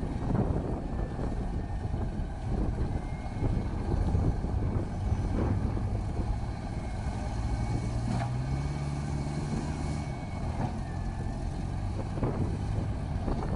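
Heavy diesel engine running under load, its pitch rising for a couple of seconds about eight seconds in before settling again.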